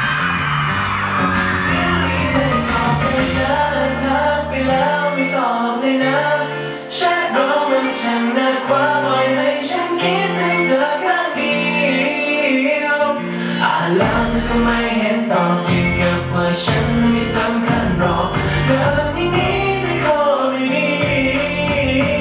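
Pop song with a singing voice over a steady drum beat and moving bass line.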